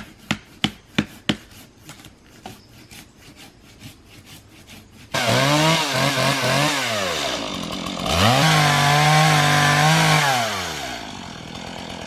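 Hammer blows at the saw cut in a tree trunk, about three sharp strikes a second, then fading to faint ticks. About five seconds in a small Stihl chainsaw comes in loud, revs up and down, runs at high revs cutting into the trunk for a couple of seconds, then drops back toward idle near the end.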